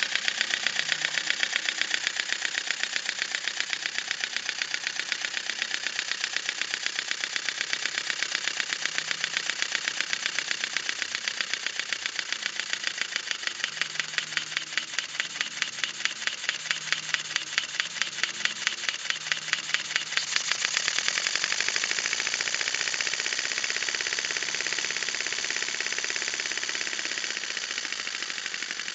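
Model Comber rotary engine running on compressed air, its exhaust coming in quick, regular puffs. About two-thirds of the way through it speeds up until the puffs blur into a continuous hiss, then slows back to separate puffs near the end.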